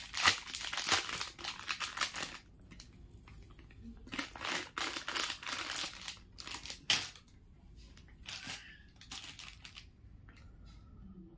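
Plastic jewellery packaging crinkling and rustling in handling. The sound is dense for the first couple of seconds, then comes in scattered bursts.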